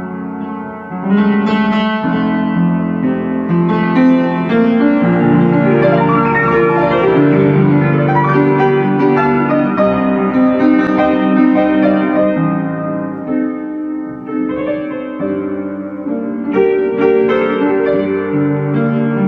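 Instrumental piano music with no singing: a melody over held notes, a brief dip in the texture about thirteen seconds in.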